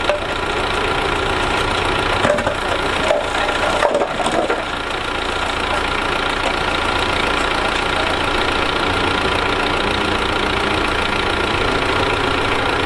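Diesel engine of heavy earthmoving equipment running steadily under work, with a few brief knocks about two to four seconds in.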